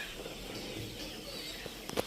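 Faint bird calls over quiet farmyard background noise, with a sharp click just before the end.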